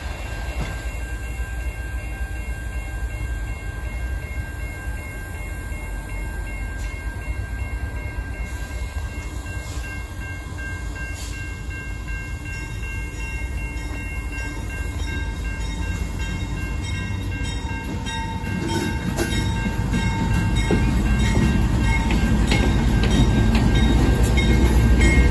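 NR class diesel-electric locomotives (GE Cv40-9i) rolling slowly toward and past at close range. Their engine rumble grows steadily louder over the last third, with a run of clicks from the wheels as they draw alongside.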